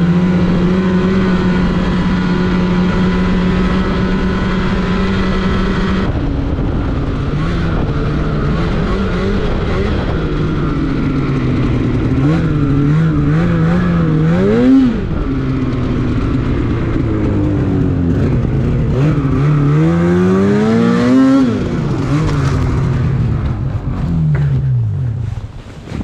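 Snowmobile engine running at a steady cruise, then revving up and down twice as the sled works through deep powder. Near the end the revs fall away and the sound gets quieter.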